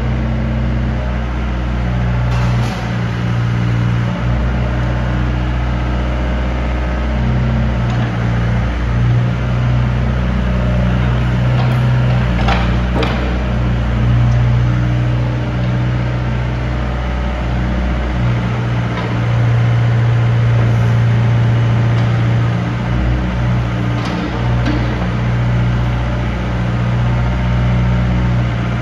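Volvo EC55B midi excavator's diesel engine running while the boom, arm and bucket are worked and the upper structure slews. The engine note shifts every few seconds as the hydraulics take load, with a few sharp knocks about halfway through and near the end.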